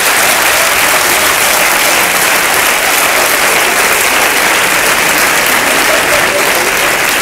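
Live audience applauding steadily in response to a stand-up comedian's punchline.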